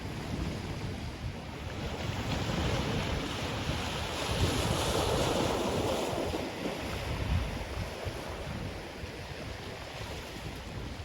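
Ocean surf breaking on a black sand shore: a wave swells and crashes a few seconds in, then washes back and eases off. Wind buffets the microphone as a low rumble throughout.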